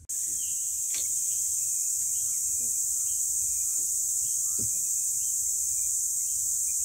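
A steady, high-pitched insect chorus, with faint short bird chirps. There is a soft thump about two-thirds of the way through.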